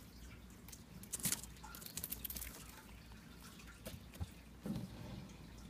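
Faint, scattered clicks and light taps from handling in a leopard gecko enclosure: a cluster about a second in, more around two seconds, then single ticks near the end.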